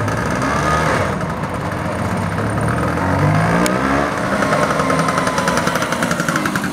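Classic two-stroke Vespa scooter engines running as the scooters ride over cobblestones, the engine pitch rising as one is throttled up about three seconds in. Near the end a scooter passes close by, its rapid, even exhaust firing coming through clearly.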